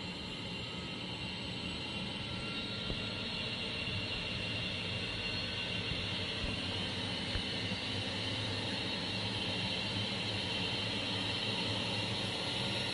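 Helicopter in flight heard from inside the cabin: a steady drone of engine and rotor with a hiss on top, slowly growing louder.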